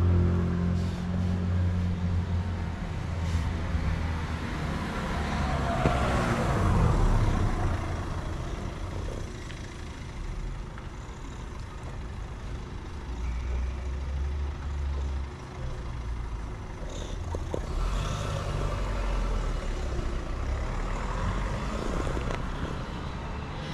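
A tabby-and-white cat purring loudly while its head is stroked: a low, steady rumble, strongest in the first few seconds.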